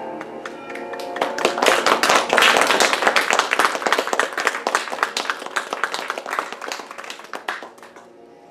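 Small audience applauding. The clapping builds quickly after about a second and thins out near the end.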